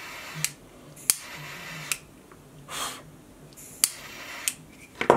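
Torch lighter held to the end of a paracord strand to melt it: a handful of sharp clicks, with the flame hissing faintly in short spells.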